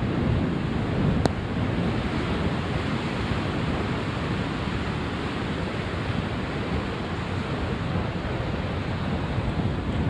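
Storm surf breaking and washing up a sandy, rocky shore in a steady, continuous rush of rough waves, with wind buffeting the microphone.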